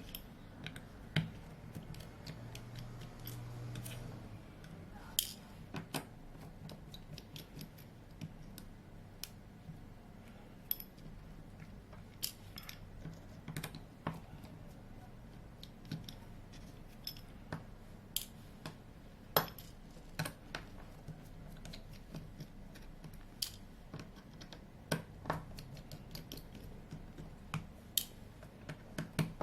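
Small sharp clicks and taps of hand tools on a Samsung A12 smartphone being taken apart, irregular and about one or two a second, over a faint steady low hum.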